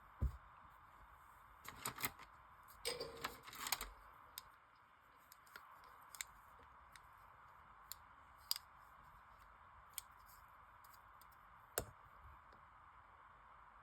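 Straight razors and small tools handled on a workbench: scattered light clicks and taps, with a short rustle about two to four seconds in.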